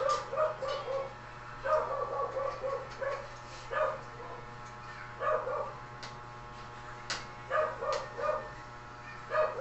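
Dog barking in short repeated yaps, in clusters of two to four, the clusters a second or more apart.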